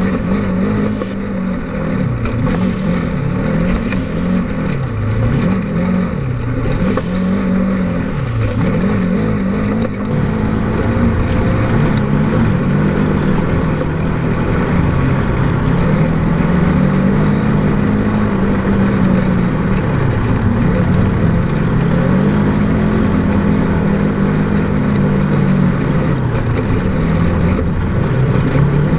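Polaris RZR 900 side-by-side's twin-cylinder engine running under way, its pitch rising and falling every few seconds as the throttle opens and closes, with longer, steadier pulls in the second half.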